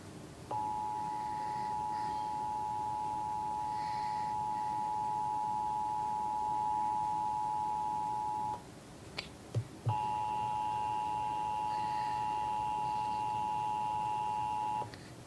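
Emergency Alert System two-tone attention signal, two steady pitches just under 1 kHz sounding together. It holds for about eight seconds, cuts off, and after two short clicks comes back for about five seconds more. It marks the start of an EAS Required Monthly Test.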